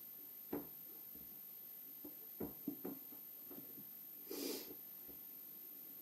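Faint, scattered soft knocks and rustles of hands pressing and smoothing a rubber mat onto a steel creeper's deck, with a short rushing sound about four and a half seconds in.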